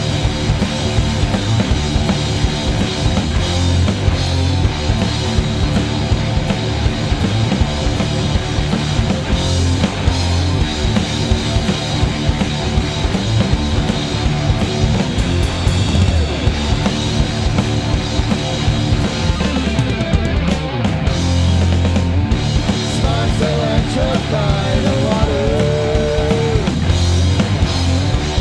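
A rock band playing live: distorted electric guitars, bass guitar and drum kit, loud and steady. A wavering melody line comes in over the top near the end.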